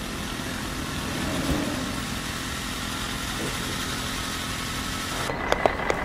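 City traffic soundscape: a steady rumble of road vehicles and their engines. About five seconds in it thins out and a few sharp clicks come in.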